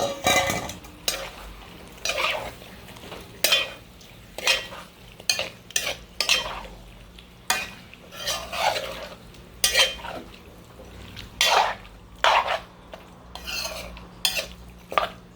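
A spoon scraping and knocking against a pot in irregular strokes, about one a second, as seasoned chicken pieces are stirred into seasoning paste frying in the pot.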